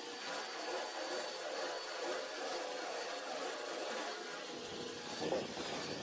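Electric belt sander with a coarse-grit belt running steadily against painted metal, a steady motor whine under the grinding of the belt. The sound swells briefly about five seconds in.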